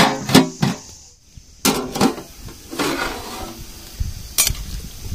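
Aluminium lid clanking and ringing against a large aluminium cooking pot as it is set on, then lifted off again. A low bubbling follows as the gravy for the chicken biryani comes to a rolling boil underneath.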